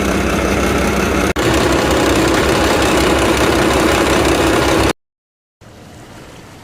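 Heavy diesel construction-machine engine running loud and steady, with a brief dropout a little over a second in. About five seconds in it cuts off abruptly to silence, then a much quieter steady hum follows.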